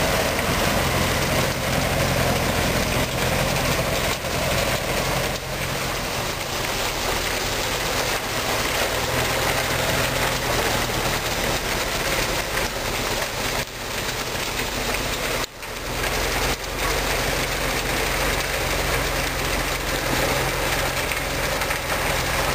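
Farm tractor engine running under load while its front-mounted snow blower churns and throws snow: a steady low engine drone under a constant rushing hiss, with one brief dropout about two-thirds of the way through.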